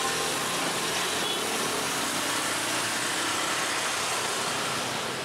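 Small motorcycle engines running as a Viar cargo motor tricycle and a motorbike ride slowly past, under a steady hiss.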